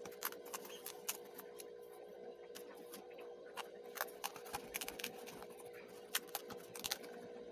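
Pre-cut pieces of a paperboard 3D puzzle being pushed out of their sheet by hand: a run of sharp little snaps as the holding tabs break, bunched in quick clusters in the second half.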